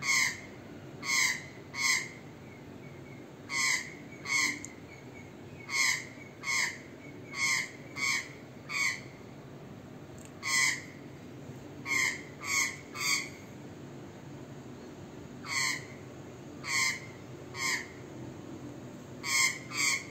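Australian magpies giving short, harsh alarm calls over and over, often in twos or threes about a second apart, with a short pause about two-thirds of the way through. The calls come from agitated birds defending their territory against a cat.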